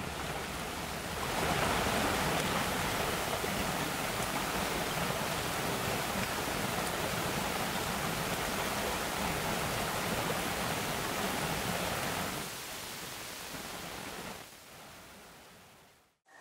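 Creek water rushing in a steady, even wash, dropping a little about twelve seconds in and fading out near the end.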